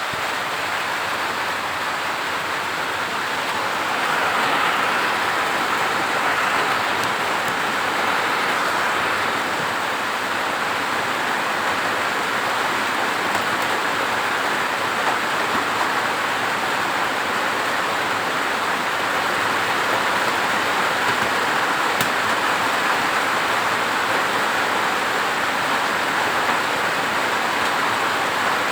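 Steady rain falling, an even hiss with no let-up and no thunder.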